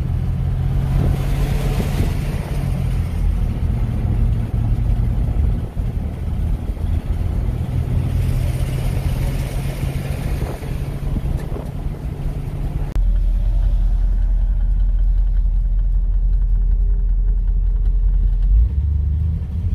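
1959 Cadillac DeVille's V8 running steadily while cruising, with tyre and road noise heard inside the cabin. About 13 s in the sound changes to a deeper, heavier low rumble with less hiss.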